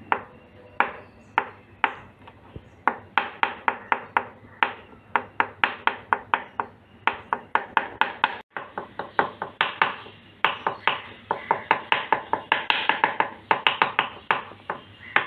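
Chef's knife chopping hard-boiled egg whites on a wooden cutting board: a quick run of sharp knocks of the blade on the board, about four a second, with a brief break near the middle.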